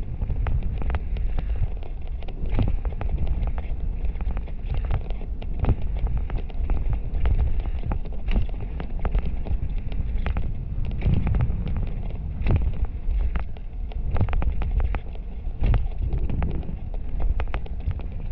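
Mountain bike descending a dirt jump trail, heard from a camera on the rider: wind rushing over the microphone and tyres rolling on packed dirt, with frequent sharp knocks and rattles from the bike over bumps and landings.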